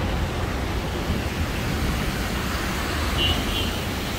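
Steady city traffic noise on a wet street, an even hiss with a low rumble. A brief faint high beep a little over three seconds in.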